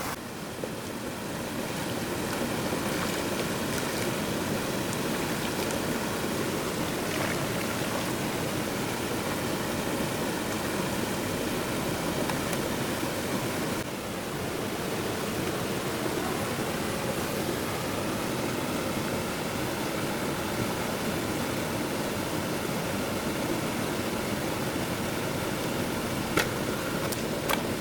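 Water rushing steadily in a stream, with a few sharp clicks near the end.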